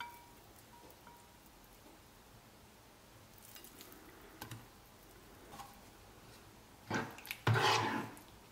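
Kitchen handling noise: a light clink of glassware at the start, then soft rustles as shredded cooked chicken is scattered by hand into a glass baking dish. Near the end, a ladle scrapes and scoops thick cream sauce in a pan, which is the loudest part.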